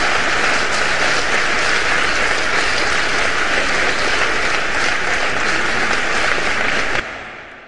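Large audience applauding steadily, cutting off suddenly near the end.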